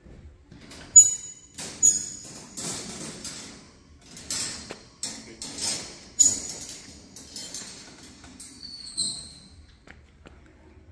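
Latch and door of a chrome wire-mesh storage cage being worked open: sharp metallic clinks and pings with a bright ringing, and rattling of the wire panels between them. A short high squeak comes near the end.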